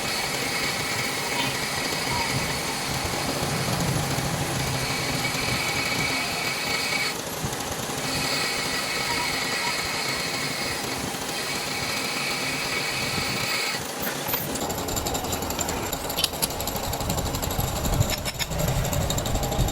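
Metal lathe running and turning a metal part, with a high whine that comes and goes through the first two-thirds and a few sharp knocks near the end.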